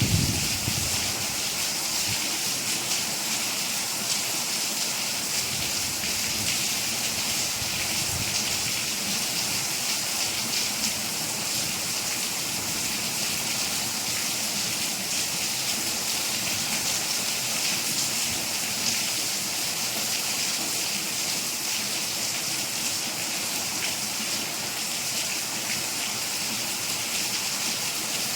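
Rain falling steadily: an even hiss with fine drop hits throughout.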